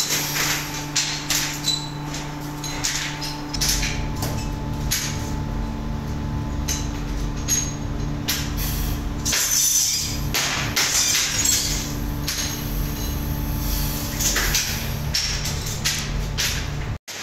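Metal clanks and knocks from a steel oven cabinet's door latches being worked and its doors opened, then steel brake shoes clattering as stacks are lifted off the oven racks. A steady hum runs underneath and stops a few seconds before the end.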